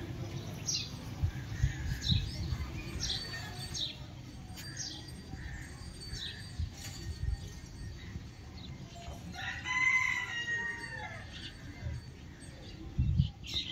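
A rooster crows once, about ten seconds in, over scattered short chirps of small birds and a low rumble.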